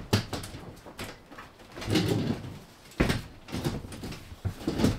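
Folding camp cot being unfolded and set down: several sharp knocks and clacks of its metal frame, the loudest about three seconds in, with rustling of its fabric around two seconds in.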